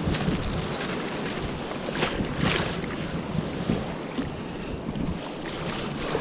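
Shallow sea water sloshing and splashing as a gill net is hauled up out of the water by hand, with wind buffeting the microphone. The splashing surges louder for a moment about two seconds in.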